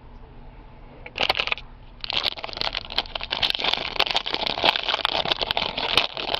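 Trading cards being handled: a short scrape about a second in, then from about two seconds on a rapid run of papery clicks and scrapes as football cards are slid and flipped through.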